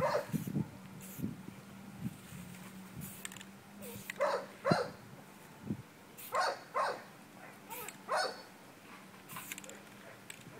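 Short hisses from an aerosol spray-paint can in use, with a dog barking now and then.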